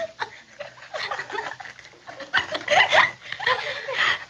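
Men laughing and snickering in short bursts, with a few indistinct words mixed in; the laughter thickens in the second half.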